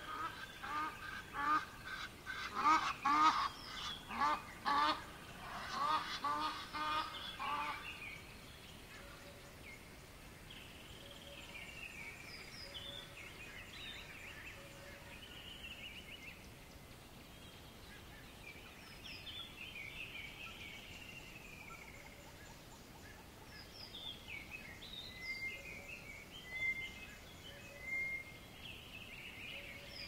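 Geese honking, a quick run of loud honks about two a second for roughly the first eight seconds. After that, smaller birds chirp and call softly over a faint steady background.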